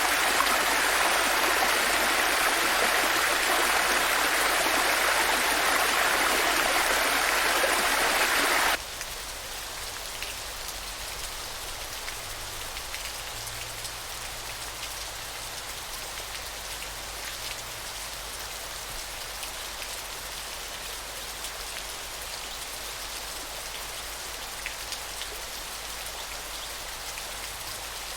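Small garden waterfall running: a loud, steady rush of falling water that cuts off abruptly about nine seconds in, giving way to a quieter, even patter of water drops.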